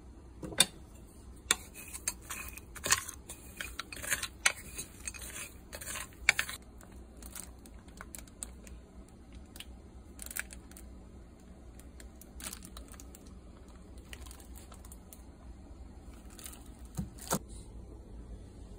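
Plastic wrapping crinkling, with a quick run of sharp clicks and snaps as bars of chocolate are handled and broken up, then a few scattered taps as pieces go into a ceramic pot.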